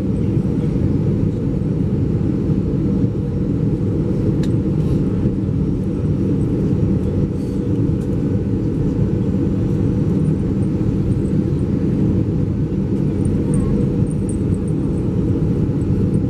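Steady low rumble inside the cabin of an Airbus A320: engine and airflow noise, even in level throughout.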